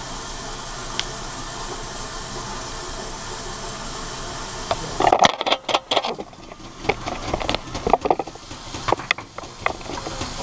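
Steady hiss of background noise, then, about five seconds in, irregular knocks and rubbing as the camera is picked up and repositioned against the perforated metal of the VEX robot frame.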